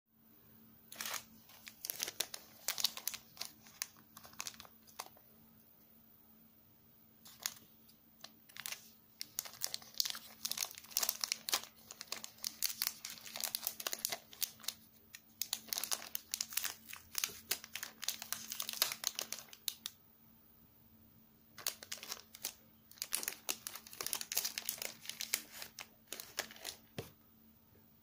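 Small clear plastic bag of rubber O-ring dampers crinkling as it is handled and opened. The crinkling comes in spells, with short pauses about a fifth of the way in and again about three quarters of the way in.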